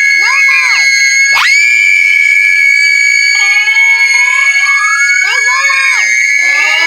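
Loud, continuous screaming sounds: high shrieks that arch up and down in pitch, one after another, with a longer rising wail in the middle, all over a steady piercing high tone.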